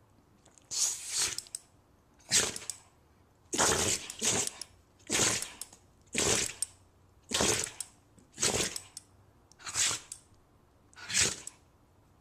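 A dog sneezing over and over, short sharp sneezes about one a second, with quiet between them.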